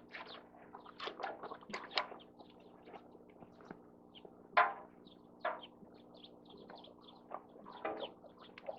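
Small birds chirping in quick short notes, with a few louder short calls, the loudest about four and a half seconds in, over a steady low hum.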